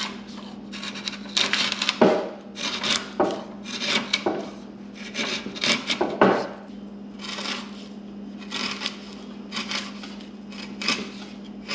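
Bench chisel pushed by hand, paring across the fibres of a softwood 2x4 notch: a series of short scraping, shaving cuts, one or two a second, the sharpest ones in the first half.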